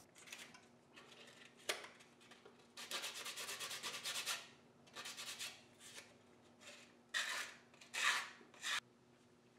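Hand sanding of wood: a fast run of back-and-forth rubbing strokes for about a second and a half, then several short scraping passes, the loudest near the end.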